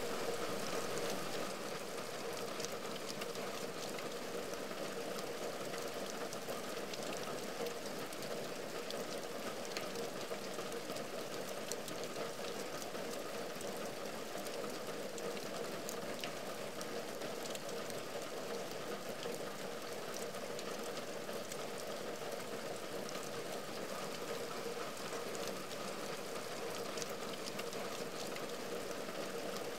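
Steady rain falling on a window and its wooden ledge. It makes an even hiss, with scattered sharp ticks of single drops.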